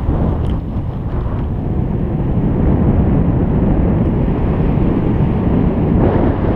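Wind buffeting a GoPro's microphone on a moving bicycle: a loud, steady, low rumble.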